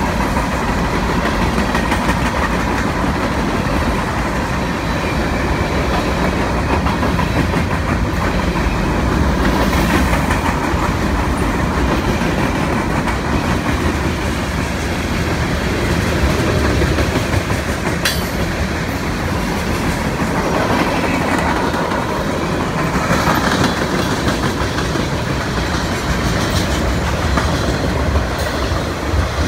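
Freight cars of a long CSX train rolling past close by: steady wheel rumble and clickety-clack over the rail joints, with a sharp clank partway through.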